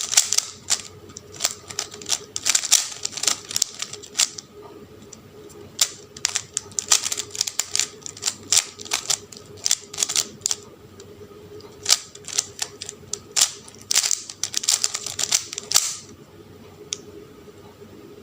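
Rubik's Cube being turned by hand: runs of quick plastic clicks as the layers rotate, broken by short pauses between sequences of moves. The clicking dies away near the end.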